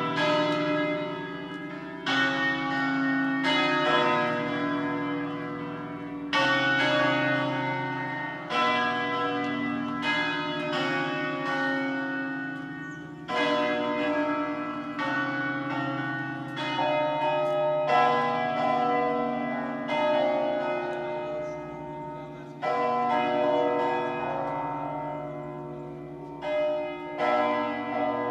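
Church bells of an eight-bell tower ringing a solemn full peal in a preset automatic sequence, the third call to Mass. Strokes from the swinging bells overlap and ring on, with a strong new strike about every two seconds.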